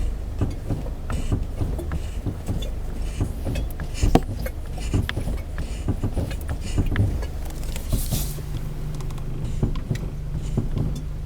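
Renault Logan rolling slowly under braking, a steady road and engine rumble with repeated irregular knocks and crunching from the front brake pads, the strongest knock about four seconds in. The front pads are worn and due for replacement.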